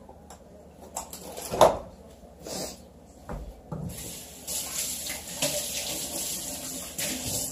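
Kitchen faucet turned on, water running steadily into the steel sink from about halfway through until it is shut off near the end, after a few short knocks.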